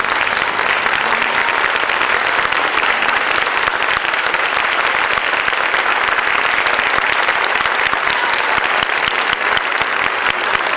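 Audience applauding at the close of a dance performance: dense, steady clapping.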